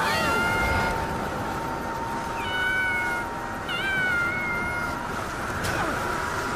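Animated bat characters' drawn-out cries, three of them, each swooping up in pitch and then held. They sound over a steady rushing noise and a constant high hum.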